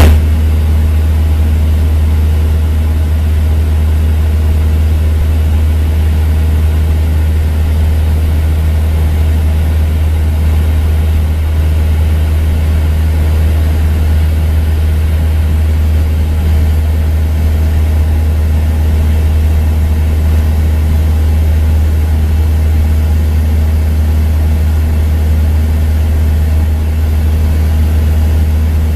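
Cessna 172's piston engine and propeller droning steadily in flight, heard from on board: a loud, unchanging low drone.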